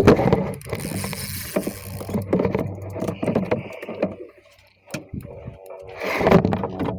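Handling noise on a small fishing boat: a run of knocks, clicks and rubbing, with a louder clatter near the end.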